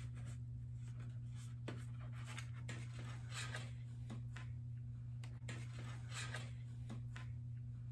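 Faint rustling, scraping and light clicks of a taco being handled in an aluminium foil pan and set on a paper plate, over a steady low hum.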